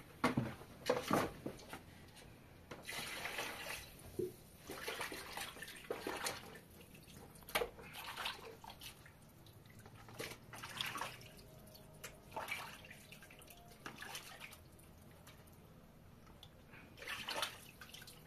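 Water splashing and sloshing in short, irregular bursts a few seconds apart.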